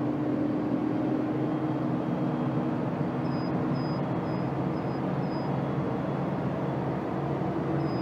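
Isuzu 3-ton truck at about 80 km/h, heard from inside the cab: a steady engine and road rumble. About three seconds in, the speed limiter's buzzer gives five short high beeps, and near the end it sounds a continuous high tone. This is the warning that the truck has reached its 80 km/h limit.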